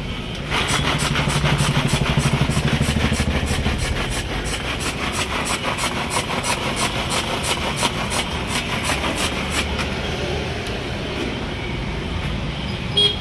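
Hand-pulled manual vegetable chopper worked rapidly over and over, its blades spinning through tomato in a glass bowl with an even clatter of about four or five strokes a second. It stops about ten seconds in.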